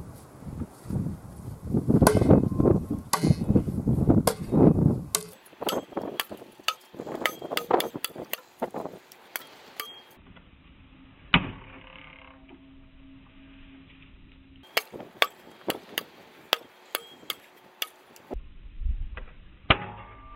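A homemade steel battle-axe chopping into an old wooden fence post: a run of sharp chopping strikes, coming in bunches with a lull in the middle.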